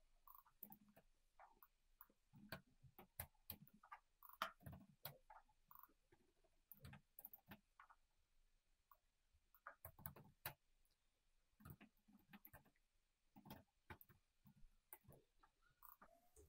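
Faint computer keyboard typing: irregular runs of quick keystrokes with a few short pauses.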